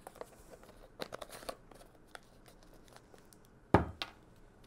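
Rustling and light clicks of a salt carton and teaspoon being handled. About three-quarters of the way through there is one sharp knock as the carton is set down on a wooden table.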